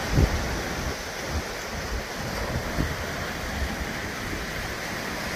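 Sea surf washing steadily on the shore, with wind buffeting the microphone in short low thumps.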